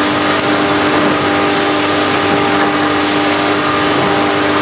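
Back-sealing vertical packing machine running steadily: an even mechanical drone with several held tones. A hiss comes and goes over it and fades after about three and a half seconds.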